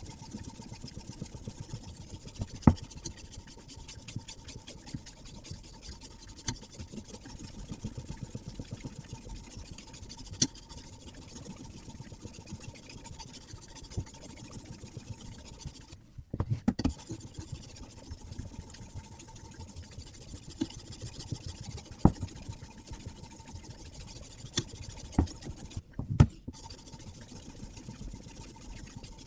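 Sharpening stone on a guided-arm knife sharpener rasping along a carbon-steel knife blade in repeated strokes, with a few sharp clicks and knocks, the loudest about three seconds in, and more near the end.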